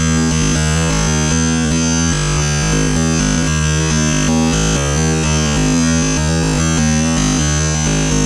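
Synthesizer music with held bass notes and shifting chords, with no machine sound.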